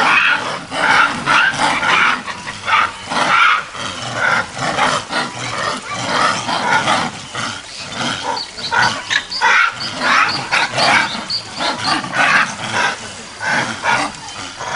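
Japanese macaques screaming in a fight: a dense run of short, high calls, several a second, overlapping one another.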